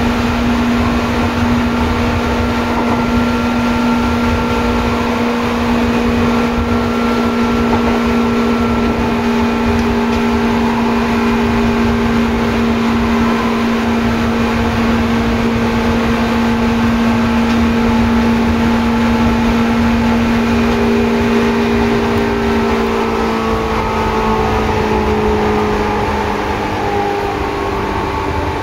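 Seibu 2000 series electric train running, heard from inside the car: a steady motor whine over the low rumble of wheels on rail. In the last few seconds the whine falls in pitch as the train slows.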